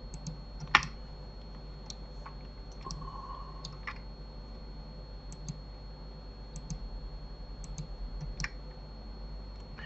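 Scattered clicks from a computer mouse and keyboard, spaced irregularly, with one louder click about a second in, over a steady low electrical hum.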